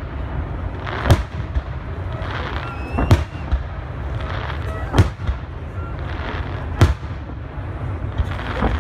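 Fireworks display: aerial shells bursting with sharp bangs about every two seconds, five in all, with crackling from the glittering stars between the bangs.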